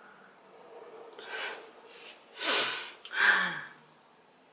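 A woman's breathy exhalations: a faint breath about a second in, then two louder breathy sighs a little past halfway, the second one voiced and falling in pitch.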